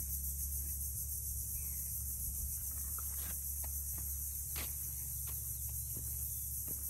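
Steady high-pitched insect chorus over a low steady rumble, with a few faint short ticks in the second half.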